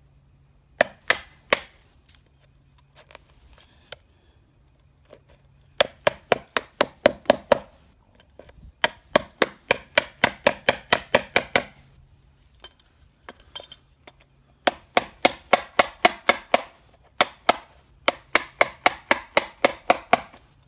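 Claw hammer striking a steel wood chisel, cutting a recess into a wooden door jamb. A few single strikes, then quick runs of blows at about five a second with short pauses between runs.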